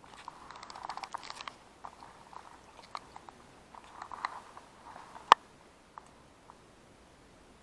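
Camera being handled and moved through grass and reeds: crackling and rustling in short clusters, with one sharp knock about five seconds in.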